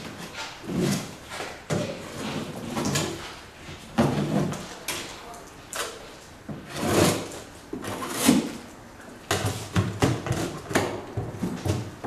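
Long-handled metal scraper dragged and pushed along the metal floor of a steam wax press chamber, through the dark residue left from melting old black brood combs. Irregular scraping strokes, about one a second, with an occasional knock.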